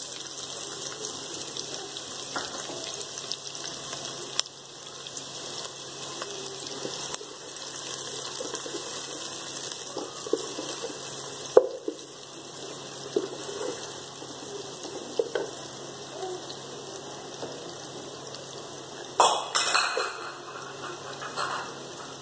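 Sliced onions sizzling in hot oil in a pot, with a steady frying hiss. A wooden spatula stirs them and now and then clicks against the pot, with a short clatter near the end.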